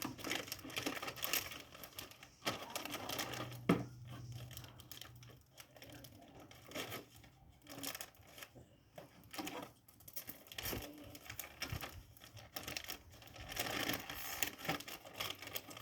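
Packaging being crinkled and torn open by hand in irregular bursts as a mystery toy is unwrapped.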